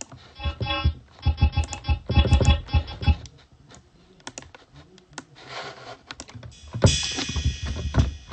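Synthesizer preset being auditioned in a music program: short pitched notes played for about three seconds, then scattered key clicks. About seven seconds in, a beat with drums and cymbals starts playing back.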